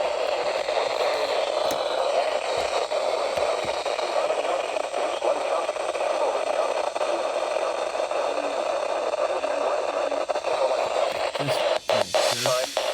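Weather radio receiver hissing with steady static on a weak NOAA Weather Radio channel, the broadcast drowned out. Near the end the hiss briefly breaks up with a few short crackles and faint voice fragments.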